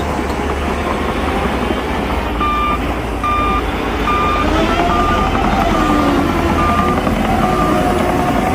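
A heavy earthmoving machine's engine runs throughout, and about two and a half seconds in its reversing alarm starts, giving about seven evenly spaced beeps at one pitch: the machine is backing up.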